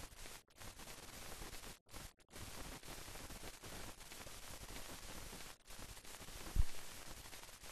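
Steady hiss and static with several brief dropouts, the noise of an old film sound track with no recorded sound on it; a single low thump about six and a half seconds in.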